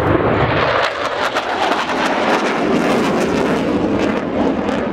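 Loud, steady jet noise from a Panavia Tornado fast jet flying past, a broad rushing sound with a crackling edge.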